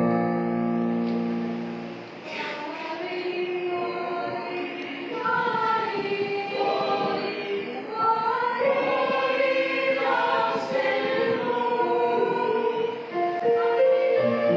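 Mixed choir of young women and men singing a Tamil Christmas carol.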